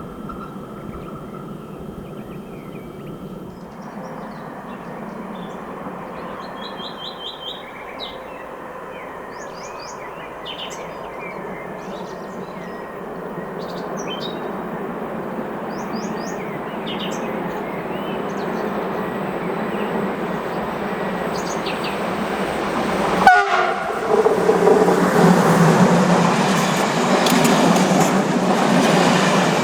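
Siemens Smartron electric locomotive hauling a passenger train, approaching and passing at speed. Its rumble grows steadily louder, with birds chirping in the first half. A brief loud sound comes about 23 seconds in, followed by the loud rush of the passing train.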